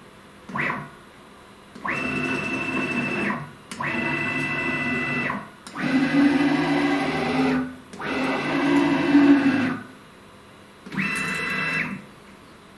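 Stepper motors of a new CNC router driving the axes in about six jog moves, each one to two seconds long with short pauses between, whining steadily while moving. The machine is being tried out at a freshly raised velocity setting during motor tuning.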